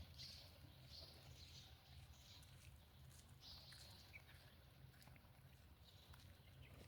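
Near silence: faint outdoor nature ambience with a low hum, a few soft high hissy chirps and scattered faint ticks.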